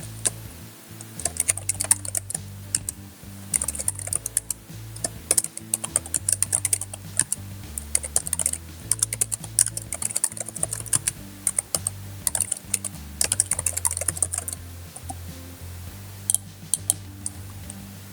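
Computer keyboard typing in quick runs of key presses as a registration form is filled in, thinning to a few single key presses near the end, over quiet background music.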